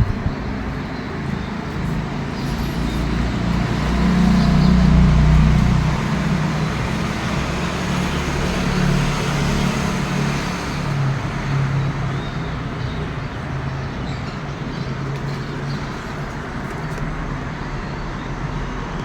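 Road traffic: a motor vehicle's engine hum with road noise, swelling louder about four to six seconds in and then easing off.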